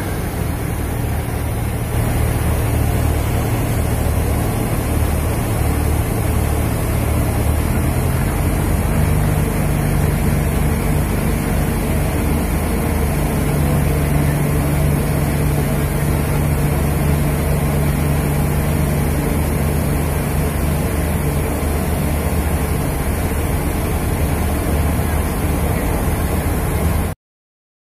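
Steady engine drone and hum from a ship, with a hiss of wind or water over it. The low hum rises slightly about eight seconds in. The sound cuts off suddenly near the end.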